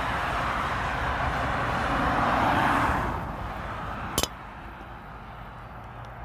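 Motorway traffic: tyre and engine noise from a car swells, passes below about two to three seconds in, then fades to a steady distant hum. A short sharp click comes a little after four seconds.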